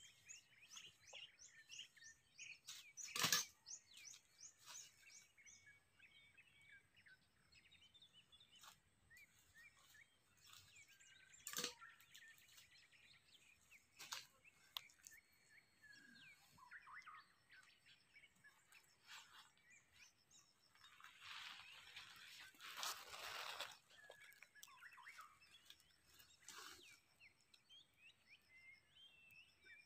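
Faint chorus of small birds chirping and twittering throughout. A sharp knock about three seconds in is the loudest sound, with two softer knocks around twelve and fourteen seconds and a short burst of rustling a little past twenty seconds.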